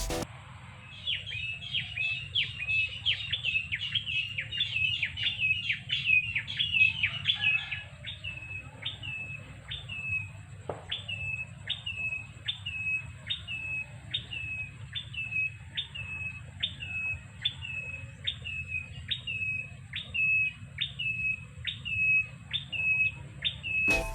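A bird calling with short, high chirps that drop in pitch, repeated about one and a half times a second. For roughly the first eight seconds a second, faster caller overlaps it.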